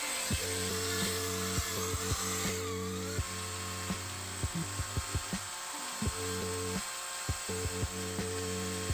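Background music with steady low notes and frequent short clicks. A high hiss cuts off a few seconds in.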